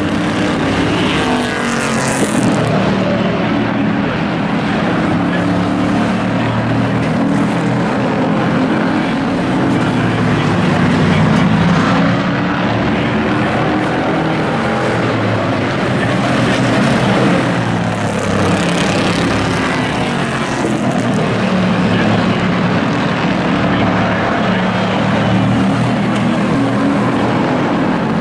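Several hobby-class race trucks' engines running at race speed on an oval, the pitch rising and falling as the trucks go round.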